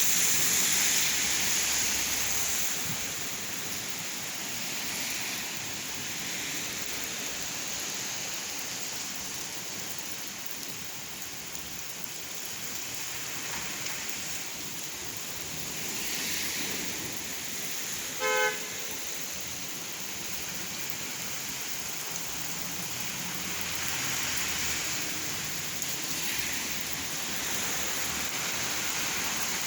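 Steady rain falling, with slow swells of hiss from vehicles passing on a wet road. About eighteen seconds in, a car horn gives one short toot.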